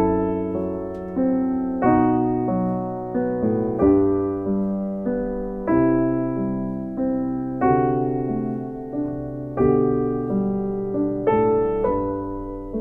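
Background music: slow piano, with a chord struck about every two seconds and left to fade before the next.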